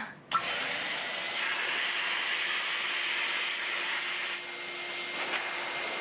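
Metrovac Air Force Commander high-velocity dog dryer switching on and blowing a steady rush of air through its hose, sounding a lot like a vacuum cleaner. It comes on suddenly about a third of a second in, and its hiss is brighter for a few seconds in the middle.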